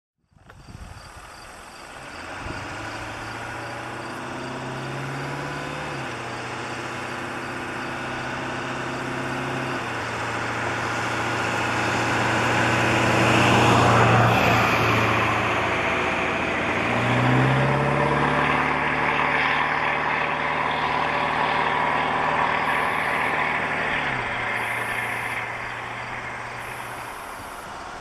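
A motor vehicle's engine running, its low hum shifting pitch in steps several times and rising in pitch just after the middle, loudest about halfway through.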